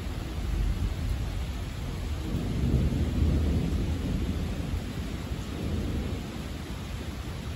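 Thunder rumbling over steady rain, swelling about two seconds in and dying away over the next few seconds.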